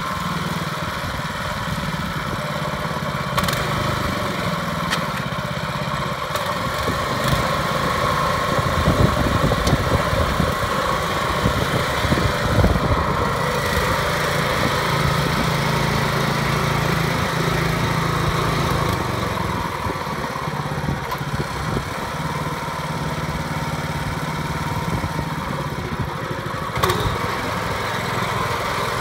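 Lumag MD-300R mini dumper's small petrol engine running steadily while the machine drives, its pitch and level shifting a little over time. A few sharp clicks come through, the clearest near the end.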